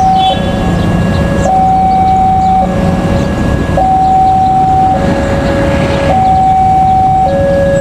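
Railway level-crossing warning alarm sounding, a steady two-tone electronic signal that alternates between a lower and a higher tone, each held about a second. It signals that a train is approaching and the crossing is closing.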